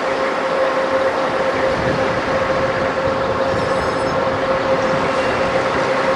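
Convoy of eight-wheeled Stryker armored vehicles driving past: steady diesel engine and tyre noise with a constant high whine.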